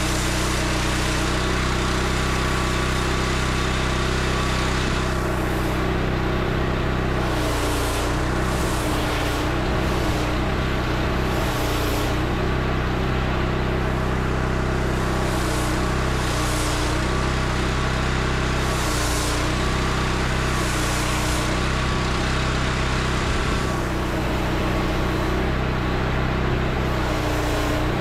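Pressure washer's engine running steadily, with the hiss of the high-pressure water spray swelling and fading every few seconds.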